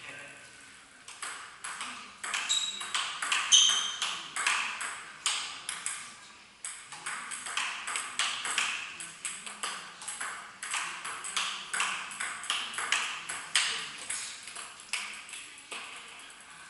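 Table tennis rally: the ball clicking off the bats and the table in a quick alternating rhythm, about two hits a second, with a short break about six seconds in. The hits die away shortly before the end.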